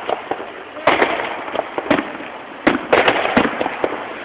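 Aerial firework shells bursting: several sharp bangs in irregular succession, each trailing off in a rumbling echo.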